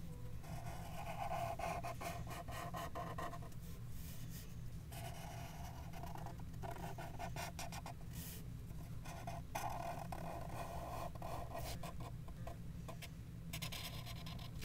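Sharpie marker tip rubbing across paper while drawing, in several strokes of a few seconds each with short pauses between, over a steady low hum.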